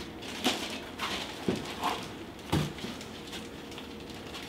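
Styrofoam packing and cardboard being handled during unpacking: a handful of short scrapes and knocks in the first three seconds, then quieter handling noise.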